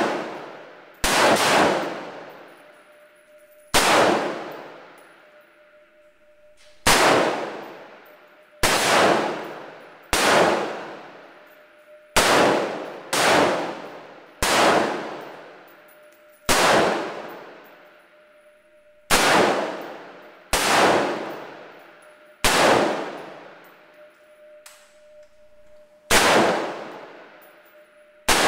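M16-style service rifle fired one shot at a time, about fourteen shots spaced one to three seconds apart, each shot echoing and dying away over a second or so in the covered range.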